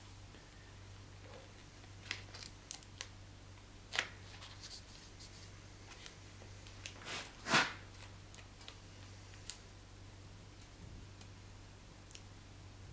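Paper towel rubbing along a steel sword blade as it is wiped, giving scattered light clicks and short swishes, the loudest about seven and a half seconds in, over a low steady hum.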